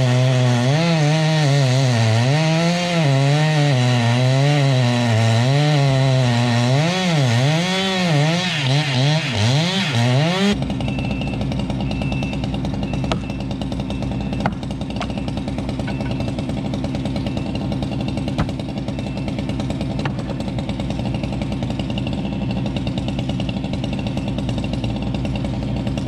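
Chainsaw running under load, its pitch rising and falling as it cuts, with quicker swings in the revs near ten seconds in. Then the sound changes abruptly to a steadier, lower engine running, with a few sharp clicks.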